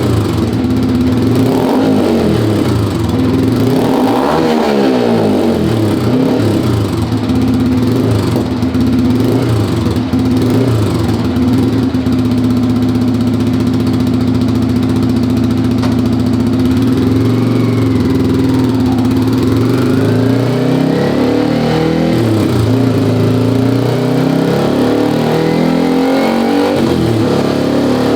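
Motorcycle engine running through a 3Tech EvoX STD aftermarket exhaust with its Easy DB Killer baffle fitted, held mostly at a steady speed. Engine speed swings down and back up a couple of times, once about four seconds in and again about two-thirds of the way through.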